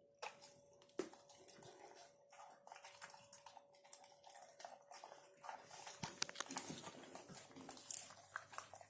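A dog eating: faint, irregular wet clicks and smacks of chewing and licking.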